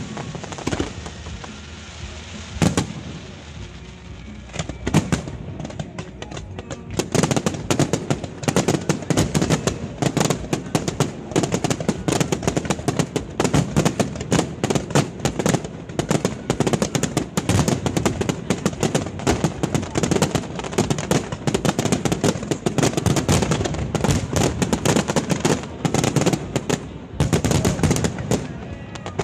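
Aerial fireworks display: a few scattered bursts, then from about seven seconds in a dense, rapid barrage of bangs and crackles.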